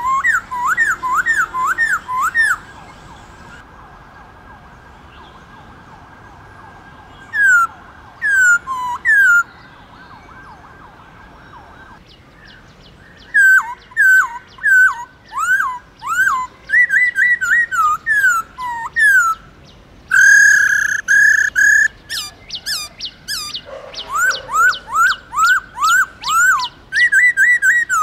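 Black-throated laughingthrush singing: loud phrases of quick, repeated whistled notes that sweep up and drop, broken by pauses. There is a long pause early on, and a held whistle partway through.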